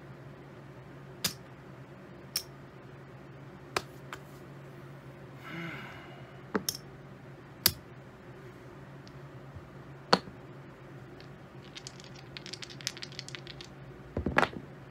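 Poker chips clicking against each other as they are picked up and stacked on a craps table, sharp single clicks every second or two, then a quick run of small clicks. Near the end a heavier knock as the dice are thrown down the table.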